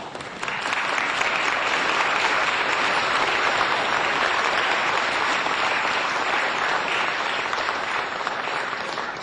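Applause: many hands clapping at once in a dense, steady patter that swells up about half a second in.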